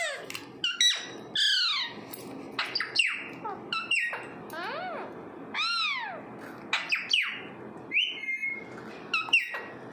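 Alexandrine parakeets calling: a run of about a dozen short squawks and whistles, each arching up and then down in pitch, with a few sharp clicks in between.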